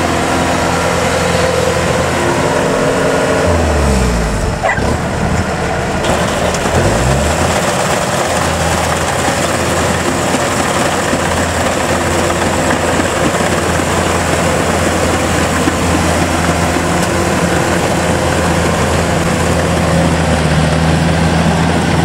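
Kubota rice combine harvester's diesel engine running under load in deep mud. Its pitch sags about three to four seconds in and climbs back up around seven seconds in, then it runs steadily.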